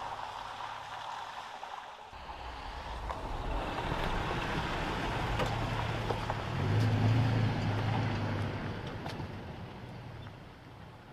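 Toyota Tacoma pickup driving onto a gravel clearing: engine hum and tyres crunching on gravel grow louder, peak about seven seconds in, then fade as the truck pulls away and brakes to a stop.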